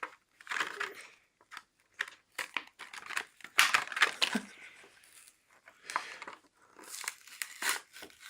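Plastic blister pack and cardboard backing of a Hot Wheels die-cast car being torn and crinkled open by hand, in a run of irregular crackles and tearing sounds, loudest a little past the middle.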